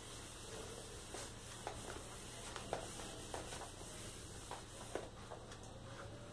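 Whiteboard duster wiping marker off a whiteboard: soft, repeated rubbing strokes with a few light taps.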